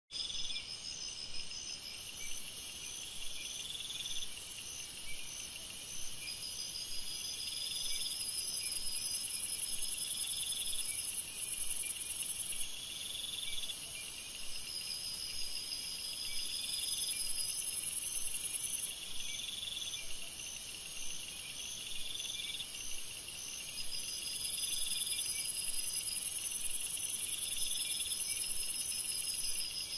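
Chorus of insects singing together: a chirping song repeated about every two seconds, steady pulsing trills above it, and a shrill high buzz that swells in and out for several seconds at a time.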